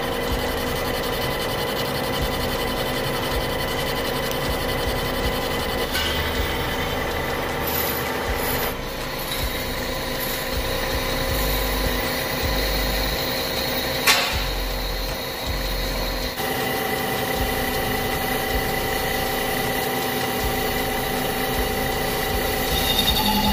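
Metal lathe running under load as its tool cuts a steel bushing, facing the end and boring the bore: a steady machine hum with several held tones over the scrape of the cut. The sound changes abruptly a few times, and there is one sharp click a little past halfway.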